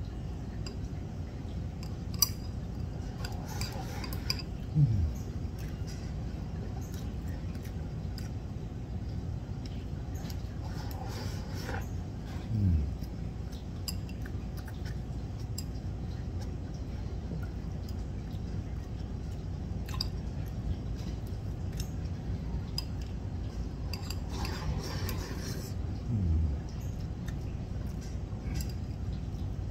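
Wooden chopsticks clicking and scraping against a ceramic rice bowl while someone eats beef over rice, over a steady low room hum. Three short low sounds falling in pitch stand out, about 5, 13 and 26 seconds in.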